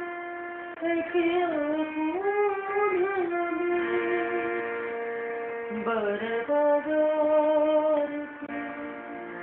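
A solo voice chanting a devotional Urdu lament (noha/tabarra) in long held notes that slide between pitches, with a steady drone underneath around the middle.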